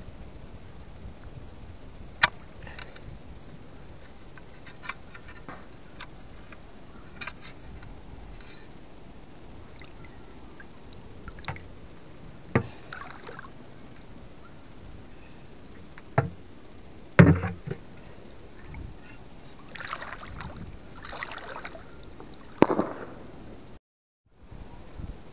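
Shallow water splashing and sloshing as a fish spear is worked through it, with a handful of sharp splashes several seconds apart, the loudest about seventeen seconds in and a cluster just after twenty seconds.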